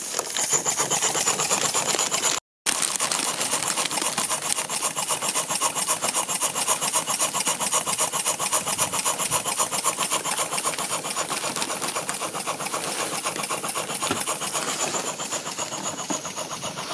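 Model George Whitney triple-expansion piston-valve steam engine running under steam, its exhaust and valve gear making a rapid, even chuffing beat. The beat grows a little fainter near the end.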